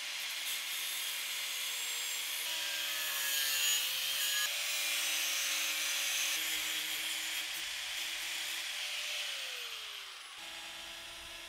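Corded angle grinder with a cutting wheel cutting through a thin metal plate: a steady grinding hiss over the motor's whine. Around nine seconds in the whine falls in pitch and the sound gets quieter as the cut eases off.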